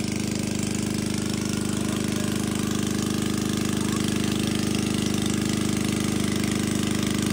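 Small engine-driven water pump running steadily at a constant speed, a fast, even chugging drone.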